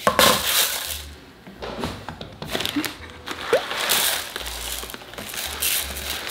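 Dry uncooked rice tipped from a bowl into a plastic mixing bowl, with a loud rush at the start. Then more rice is poured from a crinkling plastic bag: a patter of grains mixed with crackling plastic.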